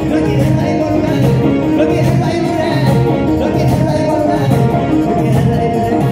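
Live band playing amplified dance music through PA speakers: bass guitar, guitar and keyboards over a steady beat, with a voice singing.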